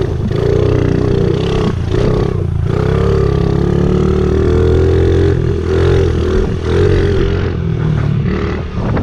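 Honda CRF50 pit bike's small single-cylinder four-stroke engine running as the bike is ridden, the revs easing off and picking back up several times.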